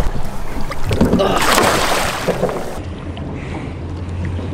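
Water sloshing against a boat's hull with wind on the microphone, and a brief rush of splashing about a second and a half in from a hooked goliath grouper held at the surface alongside. A low steady hum runs through the second half.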